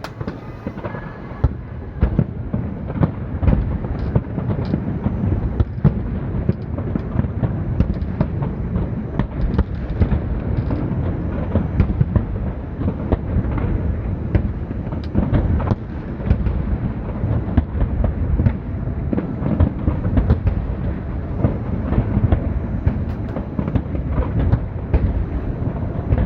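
Fireworks display in full swing: many shells bursting in quick succession, sharp cracks over a continuous low rumble.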